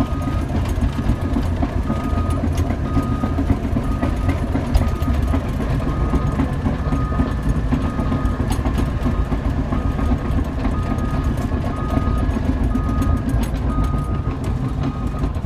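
Caterpillar D6N bulldozer's diesel engine running with a steady rattle of its steel tracks, heard from inside the cab, while its reversing alarm beeps about once a second: the dozer is backing up.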